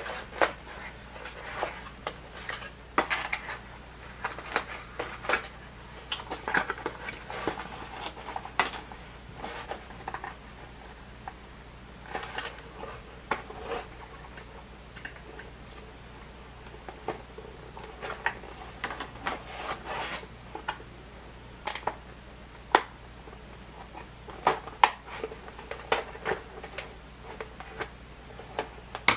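Toy packaging being handled: irregular clicks, taps and scrapes, spread through the whole stretch.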